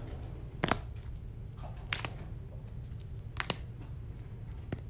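Four short, sharp clicks spaced about a second or more apart, over a steady low hum.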